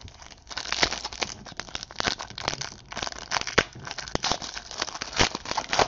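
Foil trading-card pack wrapper crinkling and tearing in the hands as the pack is ripped open: a quick, uneven run of sharp crackles.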